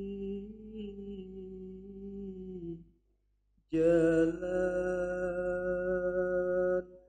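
Unaccompanied male chanting of an Arabic syair (devotional poem) into a microphone, in long held notes. One note is drawn out and fades near the three-second mark; after a brief pause a louder note is sustained for about three seconds.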